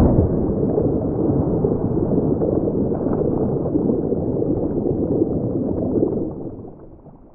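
Cinematic logo-reveal sound design: the tail of a heavy hit at the very start, then a dense, churning low rumble that holds steady and fades out about six to seven seconds in.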